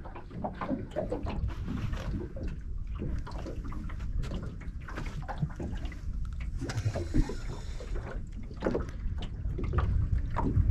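Small waves lapping and slapping irregularly against the hull of a small fishing boat, over a steady low rumble.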